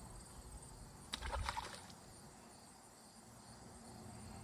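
Faint chirping of insects over quiet background, with a short burst of clicking and rattling about a second in.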